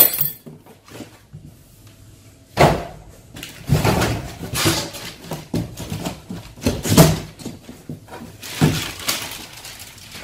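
Cardboard carton and packaging being handled as parts are pulled out: irregular rustling, scraping and knocking of cardboard, with the loudest knocks about three and seven seconds in.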